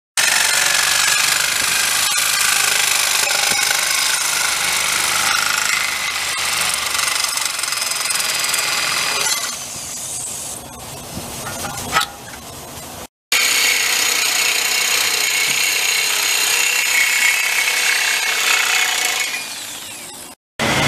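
A hand-held power tool running hard on exhaust pipe metal: loud, harsh, steady noise. Around the middle it drops quieter, with one sharp knock, then stops abruptly and comes back loud, cutting off again near the end.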